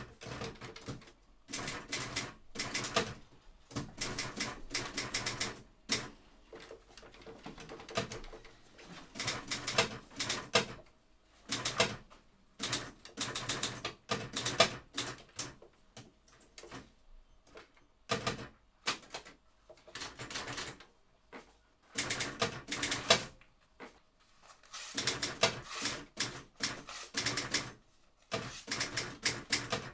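Rapid, sharp mechanical clicking in bursts of a second or two, separated by short pauses.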